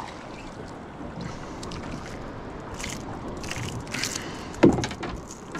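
Steady wind and water around a small boat, with scattered short rustles and clicks in the second half as a small herring is handled, and one short, loud falling sound a little before the end.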